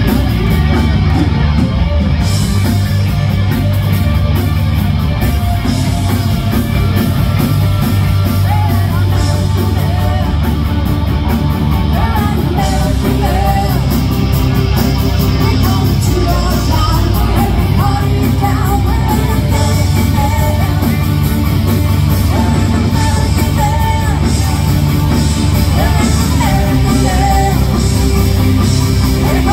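Live rock band playing loudly: electric guitar and drums with a singer's voice over them.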